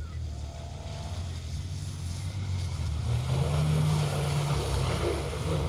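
Engine of an off-road 4x4 running as it drives along a muddy competition track; the engine note rises and gets louder about three seconds in as the driver accelerates.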